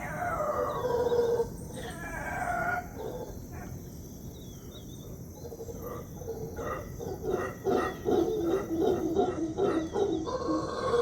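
Howler monkeys calling: a drawn-out call at the start and a shorter one about two seconds in, then a lull, and from about six and a half seconds a fast run of pulsed roars, several a second.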